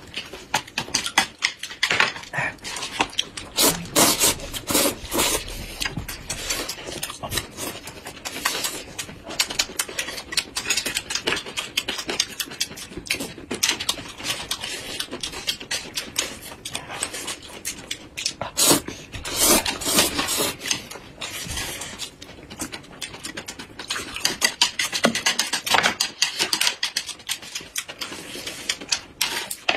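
Close-miked eating sounds: wet chewing and lip-smacking, a dense run of quick irregular mouth clicks from people eating noodles and soft steamed buns.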